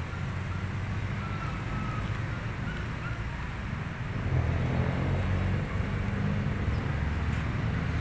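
Steady low outdoor rumble of distant road traffic, with a faint high steady whine joining about three seconds in.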